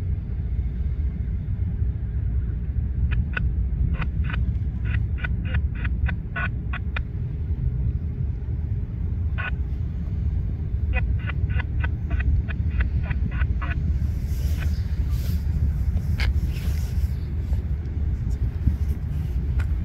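A string of Canadian Pacific diesel-electric road locomotives (SD70ACu, SD60-3 and ES44AC units) rolling slowly past, their engines a steady low rumble. Sharp clicks and knocks come in groups over it.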